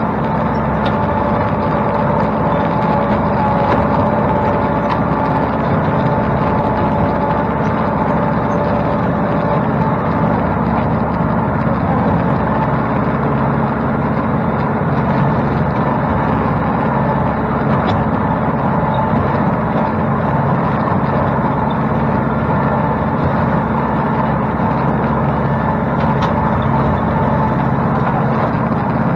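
Tractor engine running steadily under load while a rear-mounted rotary cutter (bush hog) mows through brush.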